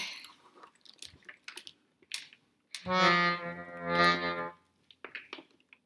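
Hohner piano accordion sounding one sustained chord for about a second and a half, swelling twice as the bellows move, with a few light knocks and clicks before and after it.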